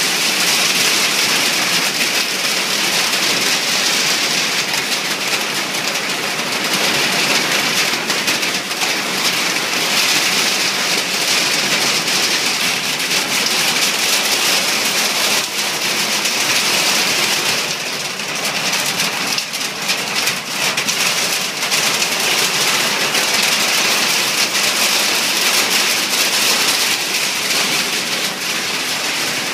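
Heavy rain mixed with hail falling in a thunderstorm: a loud, steady hiss with a dense patter of drops and hailstones.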